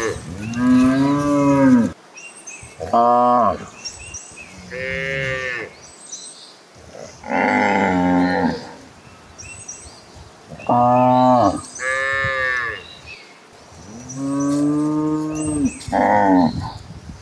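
Cattle mooing: about eight separate moos, each a second or two long, with short gaps between them.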